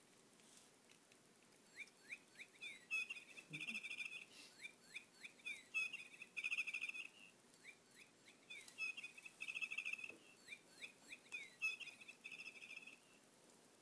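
Bird-like chirping: the same phrase four times, each a run of quick sweeping chirps ending in a fast trill.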